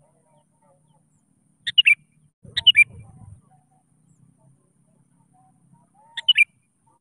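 Sooty-headed bulbul (kutilang) giving short, bright chirping call phrases, three in all: two close together about two seconds in and a third near the end. It is the bird's call to draw out a rival.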